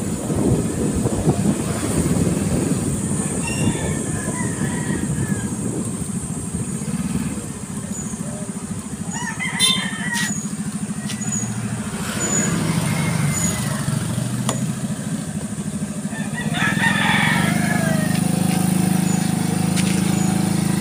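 Motorcycle engine running steadily while riding, with road and wind noise. A brief high-pitched call rises over it about halfway through, and another burst of higher sound comes about three-quarters of the way in.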